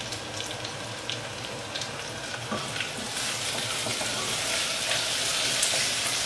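Sliced onions frying in oil in an aluminium pressure-cooker pot, a steady sizzle with small crackles that grows louder about three seconds in.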